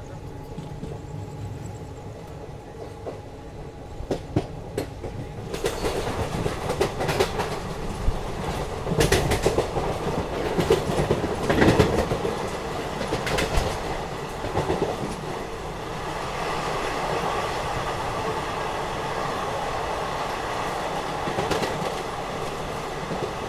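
Wheels of an ICF passenger coach running over the rail joints and points, a clickety-clack that gets much louder and busier about five seconds in as the train picks up speed. The clacks are thickest around the middle, then settle into a steady, louder rumble of track noise.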